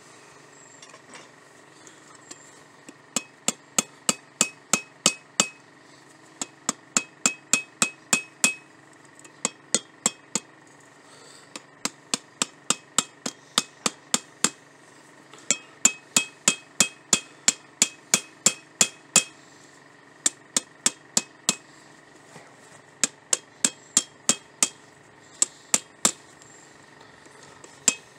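Hand hammer forging hot steel on an anvil: sharp ringing blows in runs of several, about three a second, with short pauses between runs.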